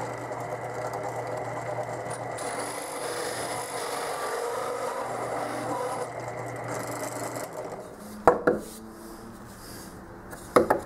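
Drill press running with a hole saw cutting through a plywood block: a rasping cut over the motor's steady hum. The drill stops about seven and a half seconds in, followed by a couple of short knocks.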